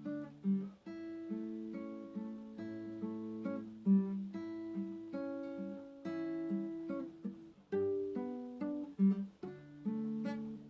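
Acoustic guitar (violão) playing a slow, gentle piece of plucked notes and chords, each letting ring before the next.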